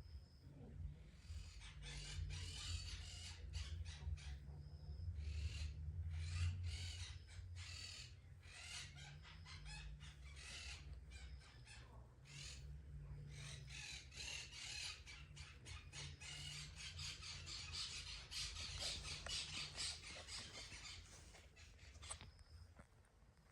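A cat licking its fur while grooming itself: irregular, soft rasping strokes that die away shortly before the end. A few faint, short bird chirps are also heard.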